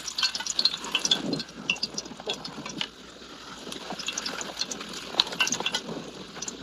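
Irregular clicks, taps and scrapes of a metal ladle and cookware being handled over a small wood fire. The clicks are busiest in the first few seconds and thin out after about three seconds.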